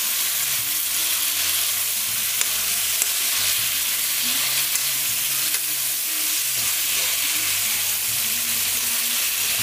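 Cabbage and chicken sizzling in a frying pan over medium-high heat while being stirred, a steady frying hiss.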